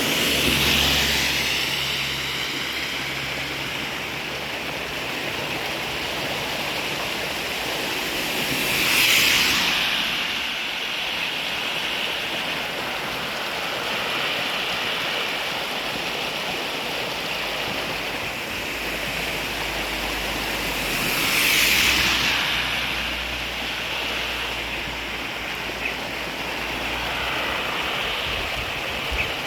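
Steady rushing noise of running water or heavy rain, with three louder swells of hiss that rise and fade over a couple of seconds each, about a second, nine and twenty-two seconds in, and a low hum underneath at times.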